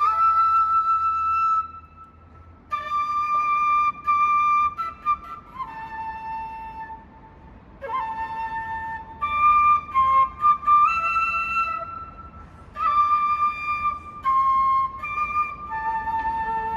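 A flute playing a slow melody in phrases of held notes, with short breaks between the phrases.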